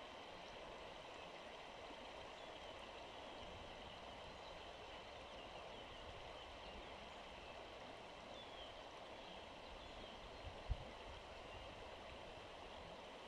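Faint steady rush of river water flowing over stones, with a single short low thump about eleven seconds in.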